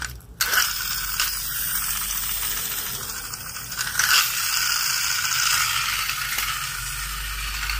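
Small motor and gears of a battery-powered toy track car whirring steadily, with a brief click about four seconds in.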